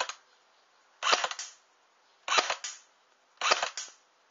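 King Arms FN FAL airsoft electric gun (AEG) fired single shots, four sharp snaps about a second apart, as it is shot through a chronograph to measure its muzzle velocity.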